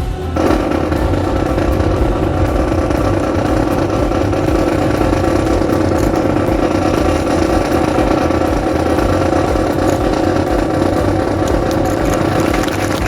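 A steady engine drone that starts suddenly right at the start and holds at an even level throughout.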